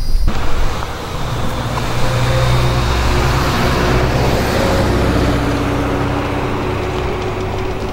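A motor vehicle's engine running as it drives, with a steady low engine hum that shifts a little in pitch and road noise that swells after about two seconds and then eases slightly.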